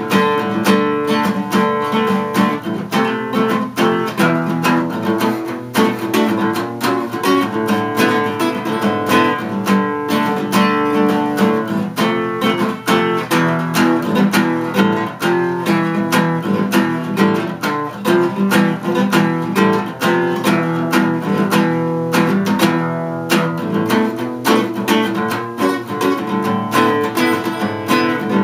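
Acoustic guitar played solo, strummed chords in a quick, steady rhythm.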